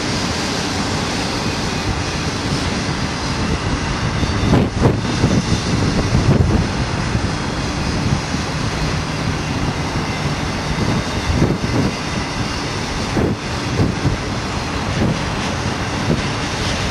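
Double-stack intermodal freight cars rolling past: a steady rumble and rattle of steel wheels on rail, with heavier knocks about five and six seconds in and again around twelve to thirteen seconds.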